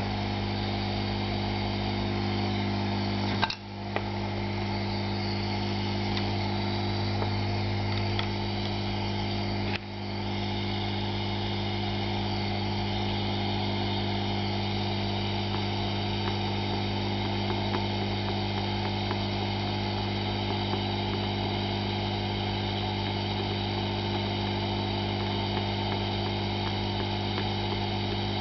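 Hot-air rework station running steadily: a constant mains hum from its air pump, with a hiss of blowing air above it. It breaks off briefly twice, about three and a half and ten seconds in.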